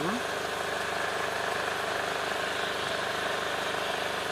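A sailing yacht's motor running steadily at constant speed, driving the boat upstream against the river current.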